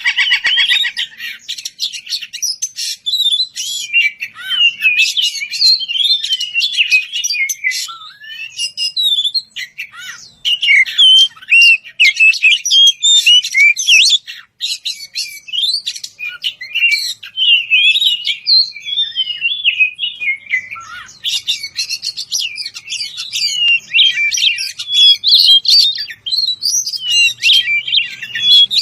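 Oriental magpie-robin (kacer) singing a loud, continuous, varied song of quick whistles, trills and harsh chattering notes that jump up and down in pitch, with only a brief pause about halfway through. It is a male's full territorial song, aimed at a rival.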